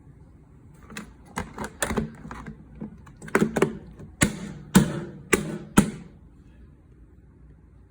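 Buttons on a NuWave air fryer's control panel pressed a dozen or so times, giving sharp, irregularly spaced clicks with no beep, as the buzzer has been removed from the control board.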